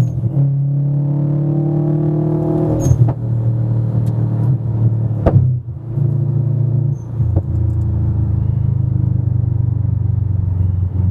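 Subaru WRX's turbocharged flat-four engine, Stage 2 with downpipe and intake, heard from inside the cabin while driving. The note rises slowly, then drops after sharp clicks about three and five seconds in, with a short dip in level about seven seconds in.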